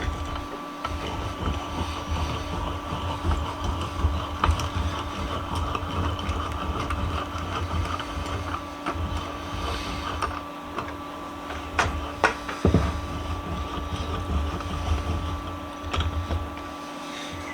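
Restored 3-inch Dawn bench vise being cranked shut, its freshly oiled main screw turning through the nut with a continuous rough rumble and a few sharp clicks from the handle.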